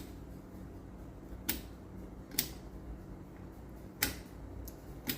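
Rotary selector switch on a Jackson 103 tube tester clicking from position to position: several sharp single clicks, roughly one to one and a half seconds apart, over a faint steady hum.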